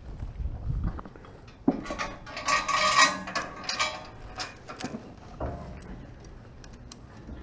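Metal tie-down chains and hardware clanking and rattling on a steel equipment trailer, starting with a sharp knock about a second and a half in and tapering to scattered clicks.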